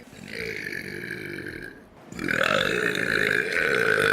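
A person burping twice: a shorter burp, then a longer, louder one starting about two seconds in.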